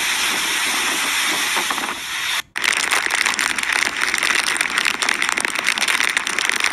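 Hurricane wind and rain, a loud, steady rushing noise. About two and a half seconds in it cuts off sharply and gives way to a second gust-filled stretch, where the wind buffets the phone's microphone with rapid crackling.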